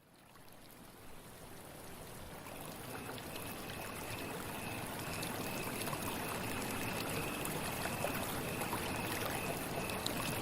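Creek water flowing and trickling, fading in from silence and growing steadily louder. From a few seconds in, a faint high note repeats in short dashes over the water.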